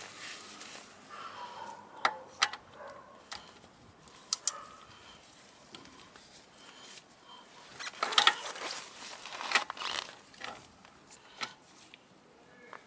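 Scattered metallic clicks and clinks from a socket wrench and extension being handled and fitted onto a bolt under a Daelim Q3 scooter's engine, with a denser bout of clatter about eight seconds in.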